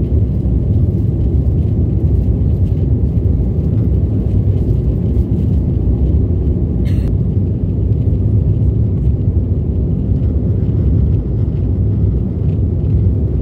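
Steady low rumble of a small passenger airliner heard from inside the cabin, with one short click about seven seconds in.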